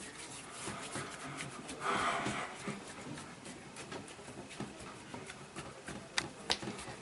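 Soft rubbing and handling of a patient's body during a chiropractic massage, with a breathy exhale about two seconds in and two sharp clicks near the end.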